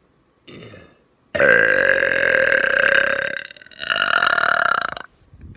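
A woman's long, loud burp, close up, lasting nearly four seconds. It falters briefly in the middle and then carries on. A short, faint sound comes just before it.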